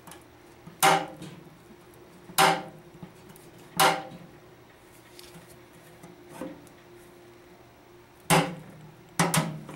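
Channel-lock pliers working a sheet-steel knockout tab in a smoker lid back and forth: a series of sharp, briefly ringing metallic clicks and creaks, a second or more apart, with a quick pair near the end, as the tab is bent toward breaking off.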